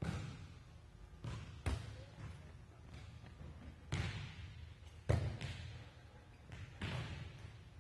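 Volleyballs being served by hand and bouncing on a wooden gym floor: about half a dozen sharp smacks at irregular intervals, each with a short echo from the hall.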